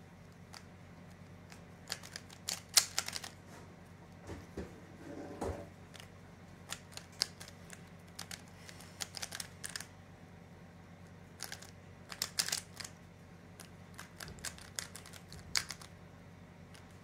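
Plastic 3x3 puzzle cube being turned fast in a speedsolve: its layers clicking and clacking in bursts of rapid turns, with short pauses between them.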